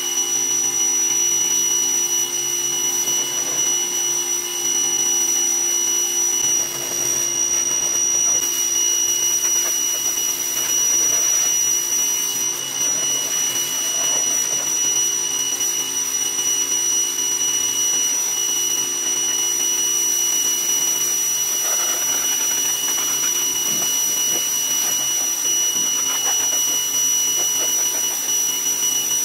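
Greenworks 2000 PSI electric pressure washer running with a steady high whine while its wand sprays a constant hissing jet of water against a pickup truck's body.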